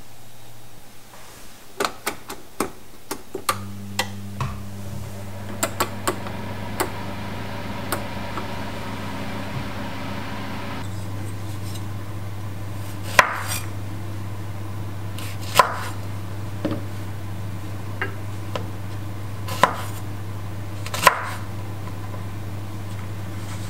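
A knife slicing kumquats on a wooden cutting board: about six sharp knocks of the blade on the board, one to two seconds apart, in the second half. Lighter clicks and taps come earlier, all over a steady low hum.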